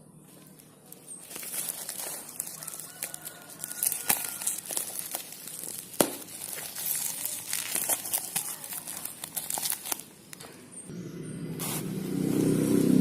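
Package wrapping being crinkled, rustled and torn open by hand, in quick irregular crackles. Near the end a louder low hum with several steady tones comes in and grows.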